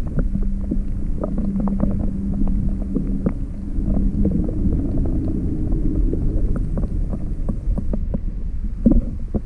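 Muffled underwater sound of river current, heard through a submerged camera: a steady low rumble with scattered small clicks and knocks, and a steady low hum that fades out about four seconds in.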